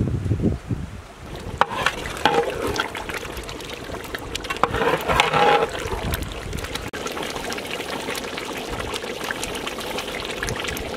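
Thick chicken curry gravy simmering in a large pot, bubbling and popping steadily, with a long metal ladle stirring and sloshing through it, loudest twice in the first half.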